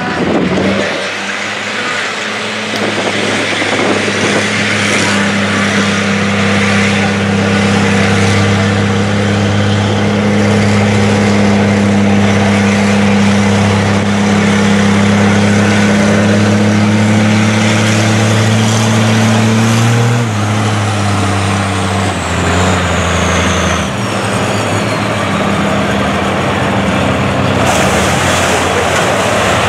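Lifted Ford mud truck on tractor-tread tyres running hard through a mud pit, its engine held at high revs with the pitch creeping slowly upward. About twenty seconds in the engine note drops and wavers, and a high whine falls away.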